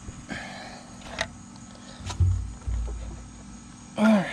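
Hand work on the tractor's brake housing: a few sharp metallic clicks, a heavy low thump and rumble about two seconds in, and a short loud sound with falling pitch about four seconds in.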